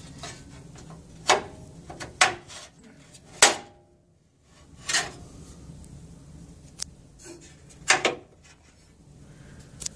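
Sheet-metal rack piece clanking and scraping against the steel frame of a DEC H9642 equipment rack as it is worked into notches on each side: a string of sharp knocks, the loudest about three and a half seconds in and near eight seconds, some with a brief metallic ring, with light rubbing between.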